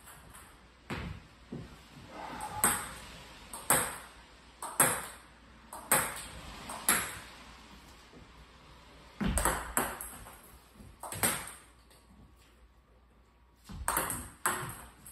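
Table tennis balls being served: a string of sharp, ringing clicks as the plastic ball is struck by the paddle and bounces on the table, spaced unevenly with a short lull about two-thirds of the way through.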